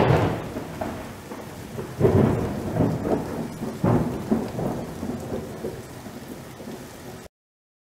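A deep rolling rumble that starts with a sudden loud onset and swells several times over a steady hiss, then cuts off abruptly.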